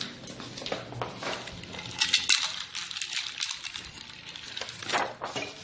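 Scattered clinks, taps and rattles of a metal cocktail shaker and martini glasses being handled on a glass tabletop, with a cluster of quick clinks about two seconds in and a sharper knock near the end.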